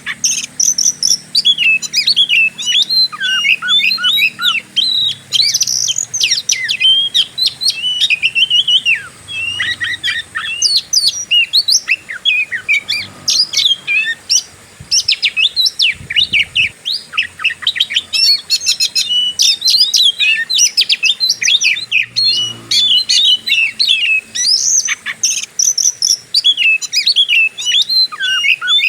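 Oriental magpie-robin (kacer) singing without a break: a rapid, varied string of loud chirps, whistles and short trills in the aggressive 'fighting' style used to provoke other males into singing.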